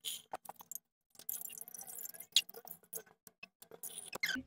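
Plastic milk sachets being handled and emptied into a stainless steel pot: scattered crinkling of the plastic and light clicks, with a longer crinkly stretch about a second in.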